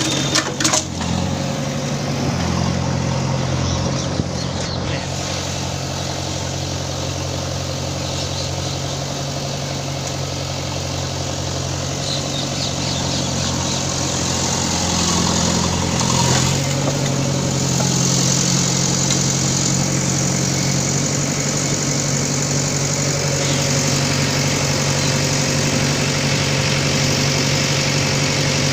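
Diesel engine of a JCB backhoe loader running steadily during demolition work, with a few sharp knocks in the first few seconds.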